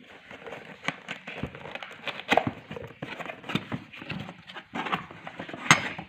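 Irregular knocks, taps and clicks of a boxed set of dessert cups being handled and unpacked, with one sharper knock near the end.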